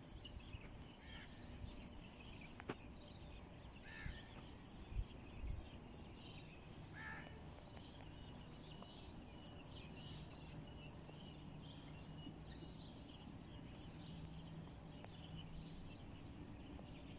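Faint outdoor chorus of small birds chirping and twittering: many short high calls overlapping, with a few lower calls in the first half.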